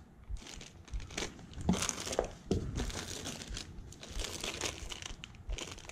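Clear plastic parts bags crinkling and rustling as they are handled, in irregular bursts with small crackles.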